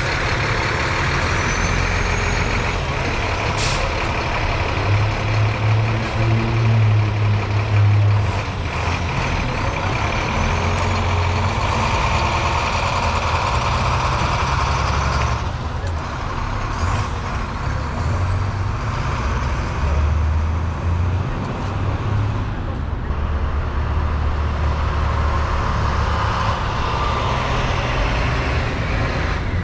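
Heavy diesel equipment running and working, the engine note rising and falling repeatedly.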